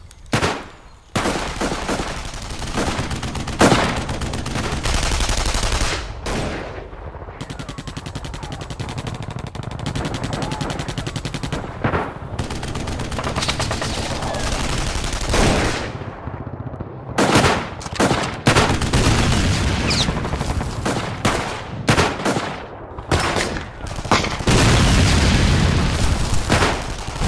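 Battle gunfire: sustained rapid machine-gun fire, with many separate louder shots standing out over it. It grows denser and louder near the end.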